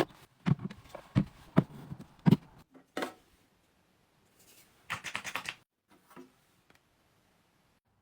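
Small items being handled and set down: a series of sharp taps and knocks, then a brief crackly rustle about five seconds in.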